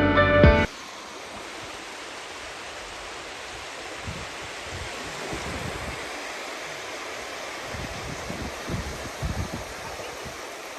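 Wind buffeting the microphone outdoors, heard as a steady rushing hiss with irregular low gusts that come and go through the middle of the clip.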